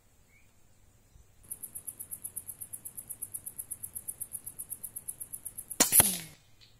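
An insect chirps in a rapid high-pitched pulsing, about ten pulses a second. Near the end a Boito Urutu 931 PCP air rifle fires with a sharp crack, and a second sharp click follows a fraction of a second later.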